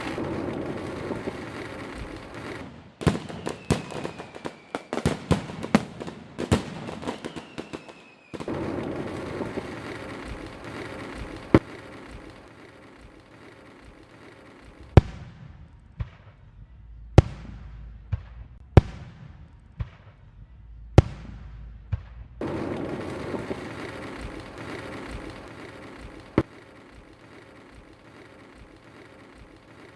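Fireworks going off: a quick run of sharp bangs, some with a short falling whistle, then single loud bangs a second or two apart, each ringing out briefly, between stretches of steady crackling rumble.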